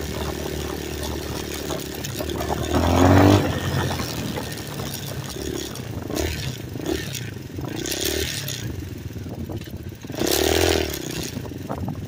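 Single-cylinder enduro motorcycle engines (a Hawk DLX 250 and a Kawasaki KLR 650) running as the bikes ride along a dirt and gravel track. The engine note swells louder twice, about three seconds in and again about ten and a half seconds in.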